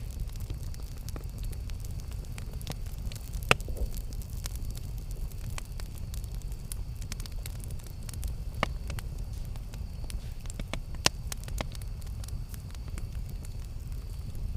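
Campfire burning, a steady low rumble of flames with scattered sharp crackles and pops, the loudest about three and a half, eight and a half and eleven seconds in.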